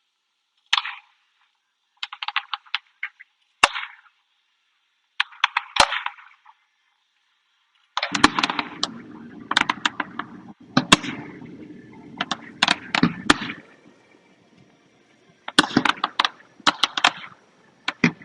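Fireworks crackling: clusters of rapid, sharp cracks with short pauses between them, growing denser and louder about halfway through.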